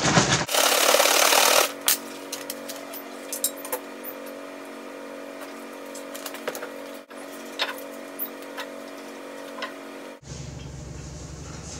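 A plastic gallon jug of liquid concrete sealer shaken hard, its contents sloshing loudly, for about a second and a half. Then quieter handling as the sealer is poured into a glass baking dish, with small clicks and knocks.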